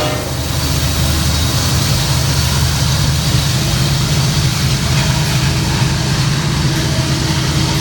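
Freight train passing close by, its diesel locomotives running with a loud, steady low rumble.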